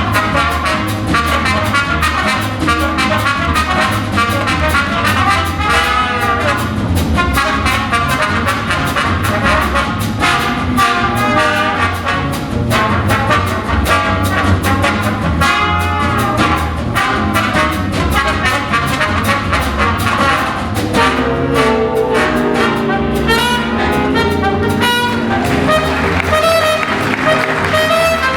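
Big-band jazz orchestra playing an up-tempo number, led by trumpets and trombones over a steady rhythm section.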